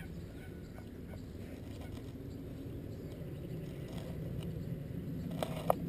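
Low, steady sloshing of lake water as a Czech Wolfdog wades chest-deep, with a short high squeak near the end.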